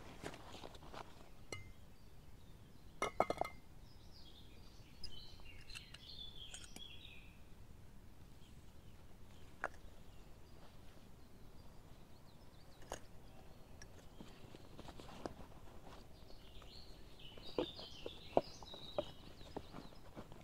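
Camping gear being handled and packed into a backpack: scattered small clicks and knocks, with a ringing clink of small metal or glass items about three seconds in. A bird sings in the background twice, once early and once near the end.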